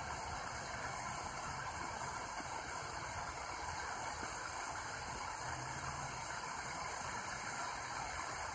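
XHDATA D-808 portable radio on the aircraft band giving out steady static hiss, with no transmission on the channel.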